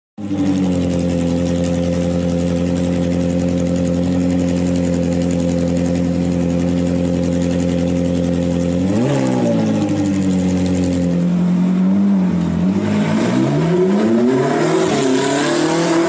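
Car engine running steadily at constant revs, then a quick blip of the throttle about nine seconds in. From about twelve seconds the revs climb in a rising pitch as the car accelerates.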